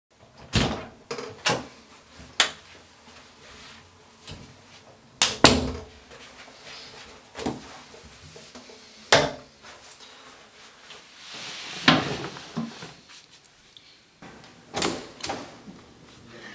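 A series of sharp knocks and clunks in a small room, like a door and cupboard doors being opened and shut, about a dozen of them spread unevenly, with a short rushing swell of noise about eleven seconds in.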